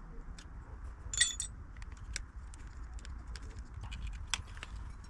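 Light metallic clicks and clinks as the cable and small metal fittings of a Brompton folding bike are handled, with a brief jingling ring about a second in and a sharper click near the end.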